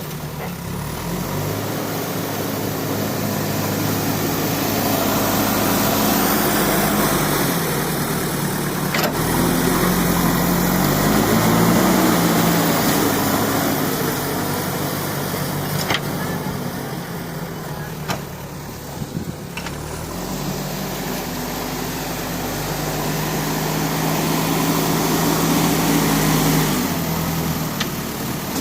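Backhoe loader's diesel engine running, its pitch rising and falling as the machine works under changing load, with a few sharp knocks.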